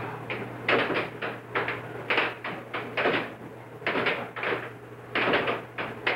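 Air hockey puck clacking hard against the players' mallets and the table rails in a fast rally, an irregular run of sharp knocks coming in quick clusters. A steady low hum runs underneath.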